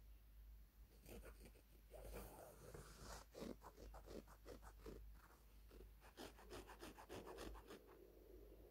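Faint, quick rustling and scratching on a quilted cotton bedspread: a run of short rubs and scrapes on the fabric.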